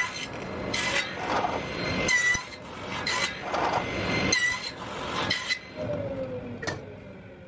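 Table saw cutting a series of narrow box-joint slots through wood with a box joint jig: about five loud passes of the blade through the wood, roughly a second apart, over the steady whine of the running saw. Near the end the saw's pitch slides down as it winds down.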